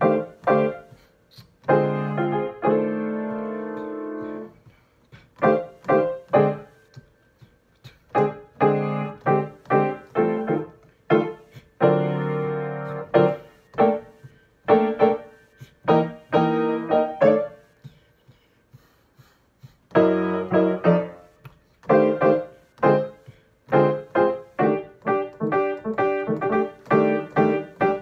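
Grand piano comping jazz chords over an F blues at an easy tempo: a run of short chord stabs with some longer held chords. The playing pauses for about two seconds roughly two-thirds of the way through.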